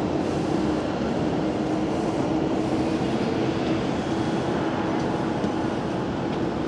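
Steady city traffic noise: an even rumble of vehicles with a faint steady hum running through it.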